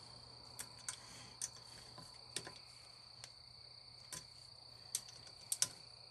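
Ratchet wrench clicking as it is worked on the bolts of a motorcycle's stator cover: about ten sharp clicks at irregular spacing as the bolts are snugged down gently in a crisscross pattern. A steady high insect trill runs underneath.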